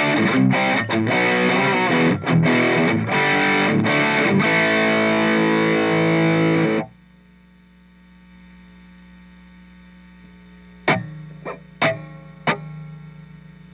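Electric guitar played through an Orange Crush 35 LDX combo amp with distortion, cutting off sharply about seven seconds in. The amp then hums faintly, with four sharp clicks near the end.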